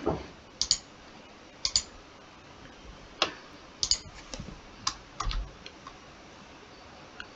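Computer mouse buttons clicking at an uneven pace, several as quick double clicks, with a duller knock about five seconds in.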